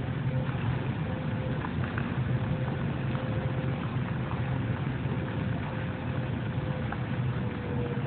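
Airport terminal fountain: thin arcing water jets splashing into a shallow pool, with faint drip-like ticks over a steady low hum and a faint steady whine that dips slightly in pitch near the end.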